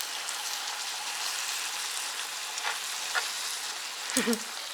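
Webfoot octopus, pork belly and garlic sizzling in a frying pan as they are stirred, a steady hiss with a few light clicks of the utensil. A brief low wavering sound comes about four seconds in.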